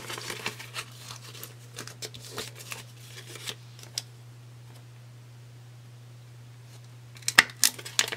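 Paper banknotes rustling and crinkling as they are handled and slipped into a cash envelope: a run of short rustles and clicks, a quieter stretch in the middle, then louder crinkling near the end. A steady low hum runs underneath.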